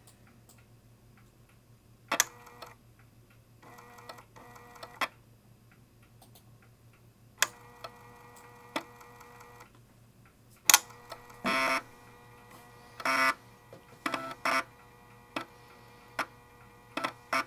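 3.5-inch floppy drive reading an Amiga disk through a DrawBridge USB interface: the drive head stepping in irregular clicks and short buzzing bursts, some lasting a second or two, as the emulated Amiga 500 boots from it.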